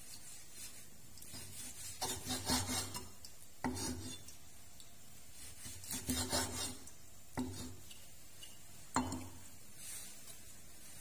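Cleaver slicing pork belly on a wooden chopping board: the blade knocks down onto the board and scrapes across it in a series of short strokes. The strokes come in clusters about two seconds in, six seconds in and nine seconds in.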